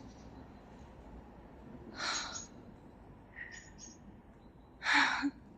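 A person breathing out sharply twice, about two seconds in and louder near the end, with fainter breaths between.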